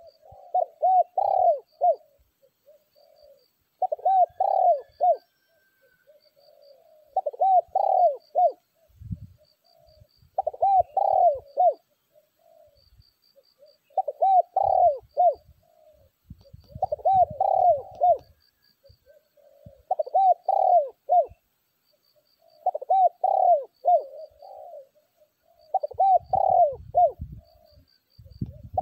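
Spotted dove cooing: a short phrase of several rolling coo notes, repeated about every three seconds, nine times. Faint high chirps from a small bird and a few low rumbles fall between the phrases.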